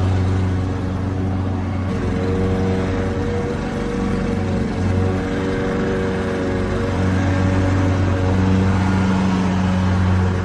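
Lawn mower engine running steadily, a continuous droning hum whose tone shifts slightly about two seconds in and again around eight seconds.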